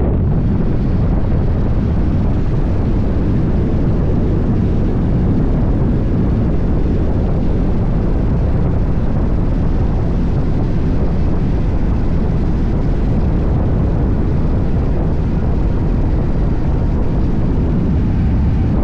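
Steady roar of wind and motorcycle running noise on a camera riding on a Yamaha Tracer 9, loud and unchanging, with no distinct engine note standing out.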